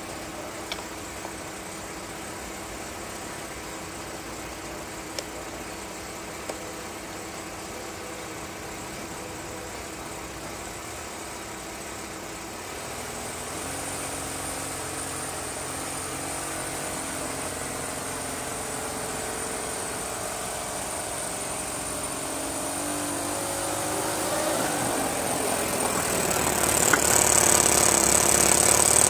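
Model Wickham railway trolley running with a steady engine-like hum and a few small clicks. About halfway through it gets louder with a high whine, then rises in pitch and grows much louder as the trolley runs up close.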